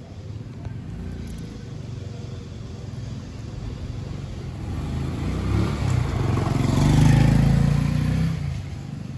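A motor vehicle passes by over a low traffic rumble. Its engine and tyre noise build from about halfway through, peak about three-quarters of the way in, then fade away.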